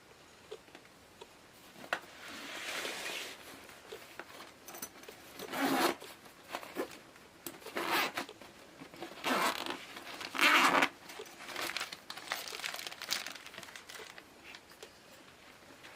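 A zipper rasping and material rustling in several short, separate bursts, the loudest about halfway through.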